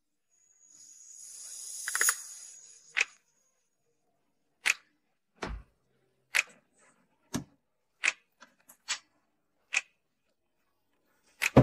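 Bedding fabric swishing as it is shaken out, rising to a peak about two seconds in. Then a string of single sharp clicks and taps, roughly one a second, from grapes being handled in a plastic box and sliced with a knife on a plastic cutting board.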